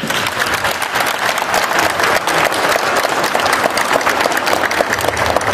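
Applause from a large audience, many hands clapping at once.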